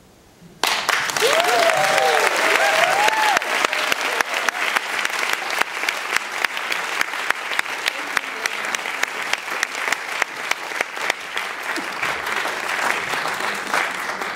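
Audience applause breaking out suddenly about half a second in and carrying on as steady clapping, with a few whoops from the crowd in its first few seconds.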